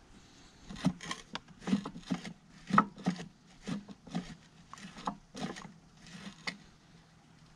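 A dozen or so irregular knocks and clunks as the hydraulic pump on a Swinger 100 loader's transfer case is rocked by hand and the gear case shifts on its bolts. This is the play that the pump's weight causes, which lets the case slump.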